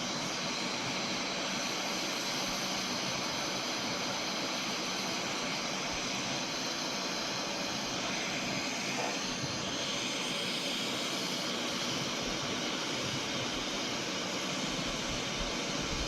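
Hot air rework station blowing a steady rush of air, heating the board to melt the solder under a newly placed USB-C port.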